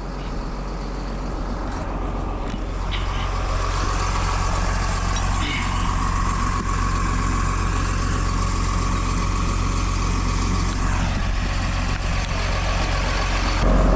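A vehicle engine running steadily, with a steady whine that comes in about three seconds in and fades out near the end.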